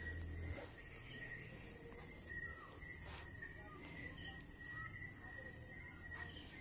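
Crickets chirping at night in a steady, high pulsing trill, with a few faint short chirps over it.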